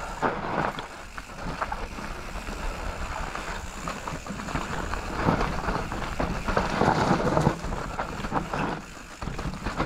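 Mountain bike riding over a rough, rooty trail: tyre noise on dirt with constant clattering and rattling from the bike, louder for a couple of seconds around the middle.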